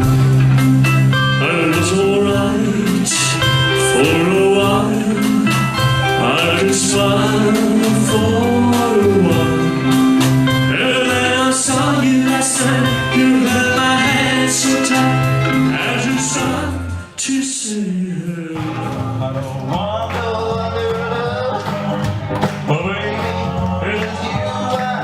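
Music: a song with a singer over a band. The music breaks off briefly about two-thirds of the way through, then picks up again.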